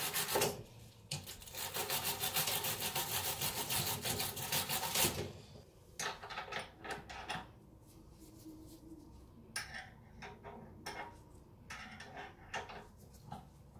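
Wire brush scrubbed rapidly back and forth over the rusty threaded end of a rear trunnion bolt for about five seconds. After that come scattered metallic clicks and taps as a socket ratchet and then a ring spanner are fitted to the nut.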